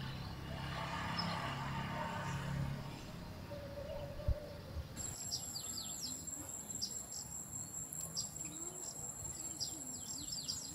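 Outdoor ambience of birds chirping in short, repeated downward-sliding calls over a steady high-pitched insect drone, both setting in abruptly about halfway through. Before that there is only a low hum and faint background noise.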